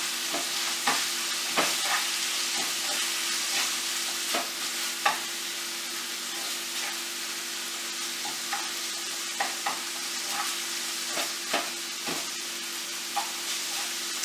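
Bite-size chicken pieces sizzling in oil in a frying pan over high heat while being stirred, with irregular clicks and scrapes of the utensil against the pan over a steady hiss.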